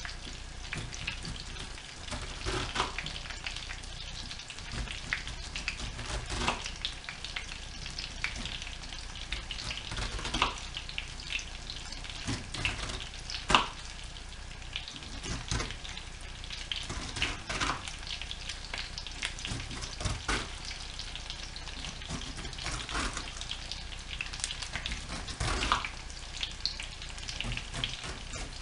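Chicken frying slowly in oil in a pan, a steady sizzle with crackles. A kitchen knife cuts the rind off a pineapple on a wooden board, one sharp stroke every two to three seconds.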